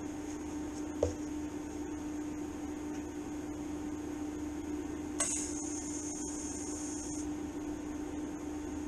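Steady electrical hum of a TIG welder. About five seconds in, a high hiss lasting about two seconds as the TIG torch is fired on thin steel.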